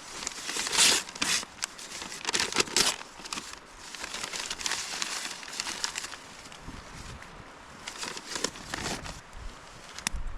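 Paper being crumpled and torn in irregular bursts, kindling to get a struggling campfire started.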